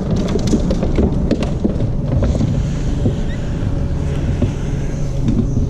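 Steady low rumble and hum of a bow-mounted electric trolling motor turning the boat, with scattered knocks and clicks, mostly in the first two seconds.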